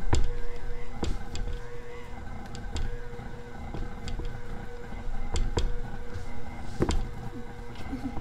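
Electric stand mixer running steadily with a motor hum, its beater mashing banana chunks into the batter, with irregular sharp knocks about once a second.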